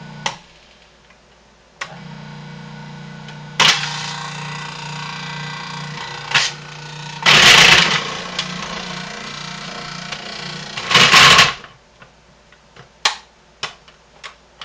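Food processor motor switched on about two seconds in and running with a steady hum, with three louder grinding rushes as a bar of homemade lye soap is pushed down the feed tube onto the grating disc and shredded. The motor stops near the end, followed by a few sharp clicks.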